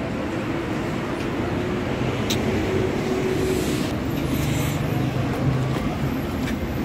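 Steady motor-vehicle noise: an engine running with road and traffic noise, without a break.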